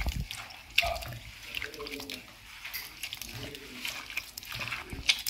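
A bare hand squeezing and stirring chopped tomatoes, tamarind water and spice powders in a clay pot: soft, irregular wet squelching and sloshing.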